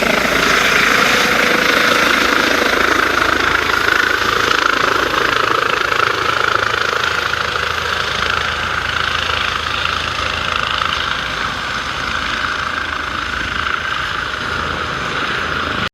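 An engine running steadily, a continuous drone that eases off slightly over the last few seconds and cuts off suddenly at the end.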